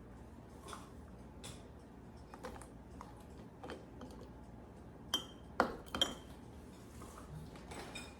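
Glass pint canning jars clinking and knocking against each other and the counter as they are handled and filled. The strikes are light and scattered, with a few sharper ringing clinks about five to six seconds in.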